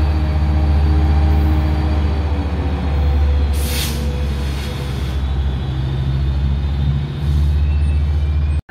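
Diesel engine of a Metrolink EMD F125 locomotive pulling its train away, a steady low drone that eases slightly as it recedes. A brief hiss of air, typical of a brake release, comes about three and a half seconds in.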